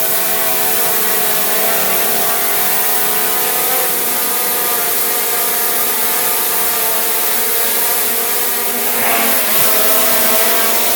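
DJI quadcopter drone's propellers whirring with a steady, many-toned buzz. The pitch wavers briefly about four seconds in, then dips and climbs back about nine seconds in, slightly louder afterwards, as the motors change speed.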